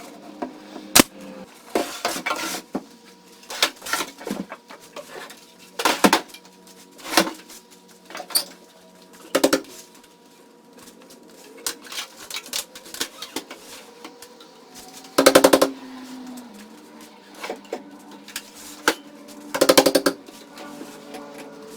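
Workshop assembly noises: several short bursts of a rapid clicking rattle, typical of a cordless drill or impact driver sinking screws into thin board, between knocks and clatter of wood and tools.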